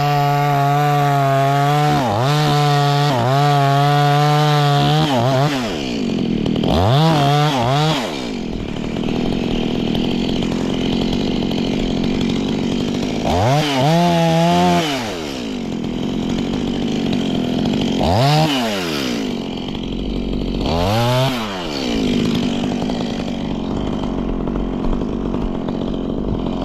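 Chainsaw cutting through a coconut palm trunk, held at high revs for about five seconds. It then drops back to idle and is revved up and down in short bursts four more times.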